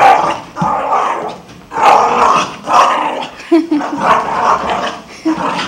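Dog growling in play in a series of rough bursts, each under a second, with a couple of short higher-pitched sounds near the end.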